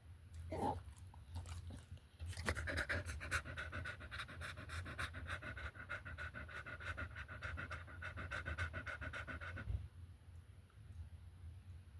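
Dog panting in a fast, even rhythm for about seven seconds, stopping abruptly near the end.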